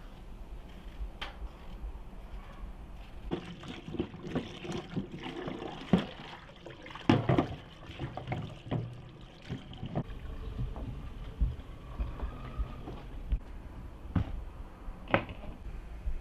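Tap water running into a bowl in a steel sink while carrots and potatoes are scrubbed by hand in it, with splashing and knocks of the vegetables against the bowl. This runs through the middle of the stretch. Before and after it there is only a low steady rumble with a few single knocks.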